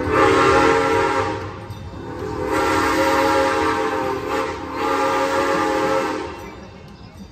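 Steam whistle of a 3 ft narrow gauge steam locomotive blowing for a grade crossing as the train approaches: one blast of nearly two seconds, then after a short break a longer one of about four seconds that dips briefly midway.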